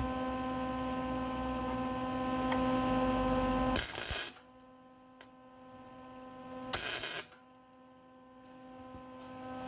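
Two short tack welds on steel exhaust pipes, each a brief crackling burst about half a second long, the second about three seconds after the first, over a steady electrical hum.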